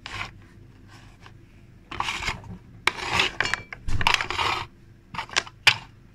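Kitchen handling noises: rasping, scraping and rustling in irregular bursts, with a few sharp clicks, as things are moved and opened on the worktop.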